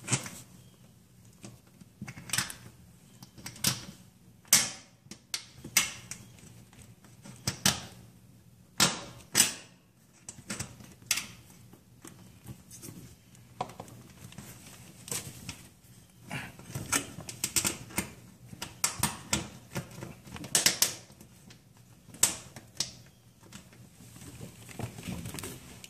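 Irregular clicks and small metallic taps as a range cord's ring-terminal wires and their nuts are handled and fitted onto the studs of an electric range's terminal block.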